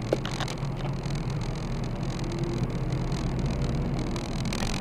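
Car engine and road noise heard from inside the cabin: a steady low hum as the car slowly gathers speed.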